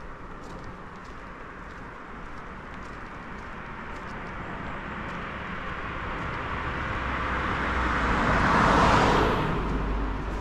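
A car passing close by: tyre and engine noise building slowly, loudest about nine seconds in, then fading as it goes away.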